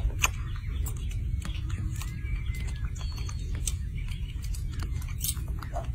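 Baby macaque chewing and biting a strawberry: irregular wet clicks and smacks, with a sharper click just after the start, over a steady low rumble.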